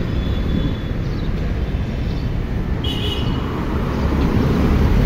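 Wind rumbling on a handlebar-mounted camera's microphone as the bicycle rides along a street with light traffic, with a short high squeal about three seconds in.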